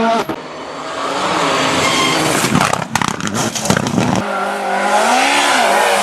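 Honda City's four-cylinder VTEC engine accelerating hard, revs climbing through the gears of its manual gearbox, with breaks for gear changes near the start and about four seconds in.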